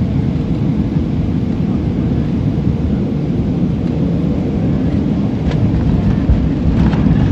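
Steady low rumble of a Southwest Airlines Boeing 737 landing, heard from inside the cabin: jet engine noise and the rumble of the wheels on the runway.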